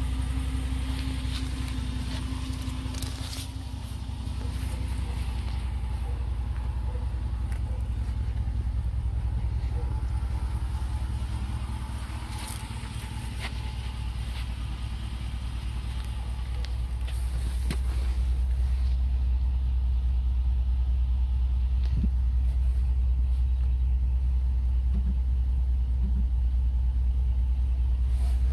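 2022 Jeep Wagoneer's 5.7-litre Hemi V8 idling steadily, a low even hum, with a few light clicks of hands on the interior trim.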